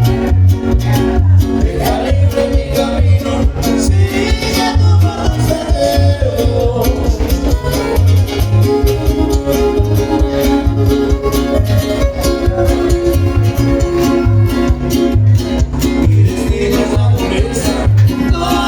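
Latin music played loud over a sound system, with plucked guitar, some singing and a steady bass beat.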